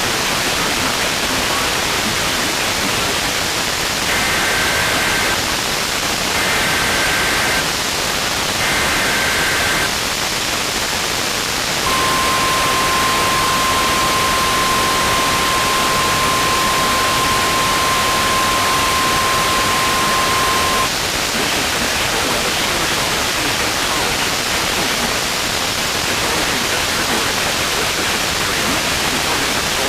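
NOAA Weather Radio emergency alert test heard through heavy radio static: three short warbling SAME data bursts, each about a second long, then the steady 1050 Hz warning alarm tone held for about nine seconds. After the tone stops, only the hiss remains.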